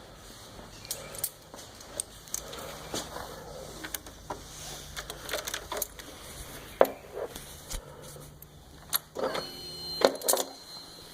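Irregular sharp clicks and rattles around a 2009 Yamaha R6 that won't start. About nine seconds in, a brief pitched hum comes in with a high steady whine that keeps going.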